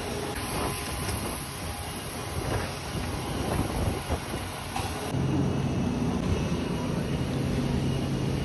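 Steady rumble and hiss of airport apron noise: aircraft and ground equipment running. About five seconds in it cuts to a steadier low engine hum.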